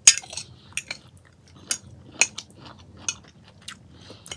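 Metal fork clinking against a glass salad container as it spears pieces of salad: a string of sharp clicks, the loudest right at the start.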